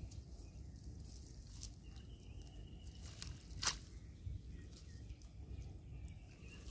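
Faint handling sounds of a wet, muddy cast net being picked through by hand, with a few sharp clicks, the loudest about three and a half seconds in, over a low rumble and a faint steady high whine.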